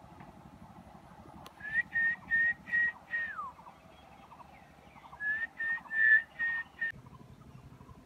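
Heron chicks calling: two runs of about five short, high, squeaky calls, the first run ending in one call that slides down in pitch.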